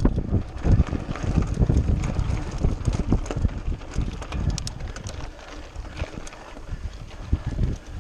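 Wind buffeting the microphone of a camera mounted on a mountain bike, mixed with the rattle and irregular thumps of the bike rolling over a bumpy dirt and gravel trail. The knocks ease for a couple of seconds past the middle, then pick up again.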